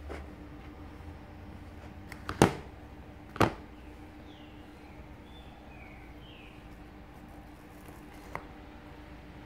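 Sharp clacks of a plastic baby fork against a plastic bowl as it is picked up: two loud knocks a second apart, then a lighter tap near the end.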